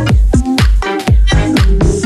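Background electronic dance music with a steady kick-drum beat about twice a second and synth chords.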